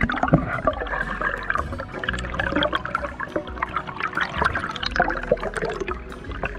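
Underwater audio from a diver's camera: water rushing and gurgling with dense crackling and clicking, starting abruptly.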